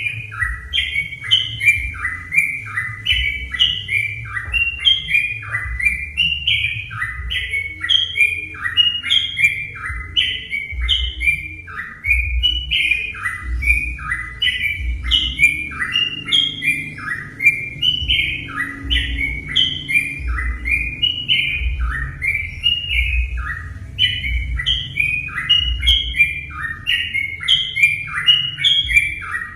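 Yellow-vented bulbul (trucukan) singing a fast, unbroken chatter of short bubbly notes that rise and fall, repeated several times a second, as in a lure recording played to prompt other trucukan to sing.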